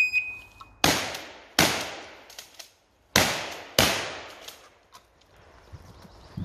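Electronic shot timer start beep, held for almost a second, then four shotgun shots: two about three quarters of a second apart, a gap of about a second and a half, then two more in quick succession, each trailing off in a short echo.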